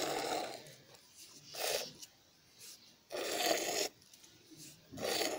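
Hand-milking a goat: milk squirting from the teat into a steel pot partly filled with milk, four short squirts about a second and a half apart.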